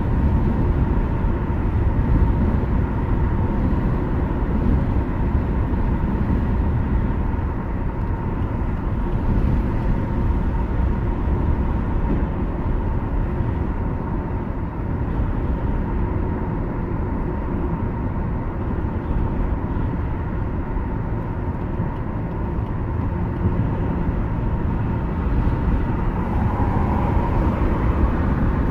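Steady road and engine noise of a car cruising at highway speed, heard from inside the cabin: a low, even rumble with a faint steady high tone above it.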